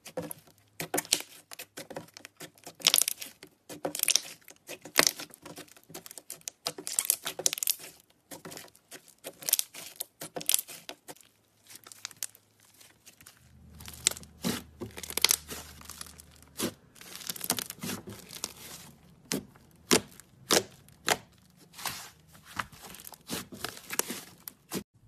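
White slime being kneaded by hand with purple clay worked into it: irregular sticky crackles and pops, several a second, as the slime is squeezed, stretched and pressed.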